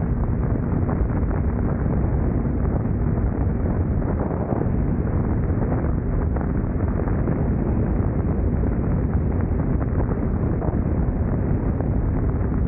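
Steady rush of wind buffeting the microphone on a moving BMW K1600 GTL motorcycle, with the running of its inline-six engine underneath.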